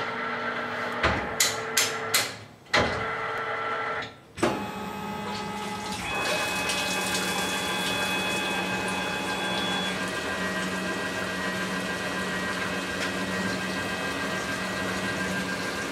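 Tormach CNC lathe running a cut: a few sharp mechanical clicks in the first couple of seconds. Then, from about five seconds in, a steady machine whine with several high tones and a low hum settles in over the hiss of flood coolant spraying on the turning part.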